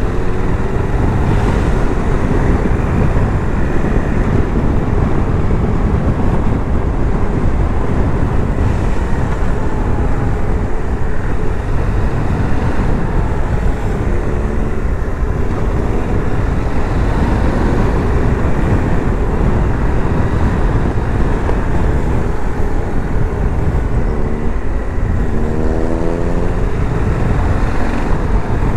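Cruiser motorcycle engine running hard at speed, heard from the rider's helmet with heavy wind rush. Near the end the engine note climbs several times in quick rising steps as it revs up.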